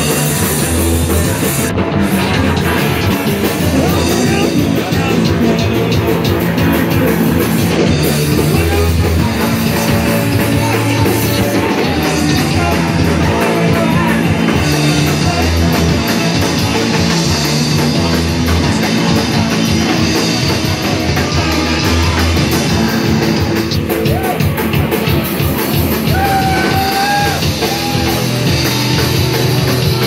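Live rock band playing loud and without a break: electric guitars over a drum kit.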